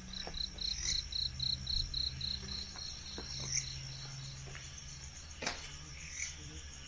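Night insects such as crickets trilling steadily and high-pitched. Over them, a run of short chirps at about four a second fades out after about three seconds, and there are a few faint clicks.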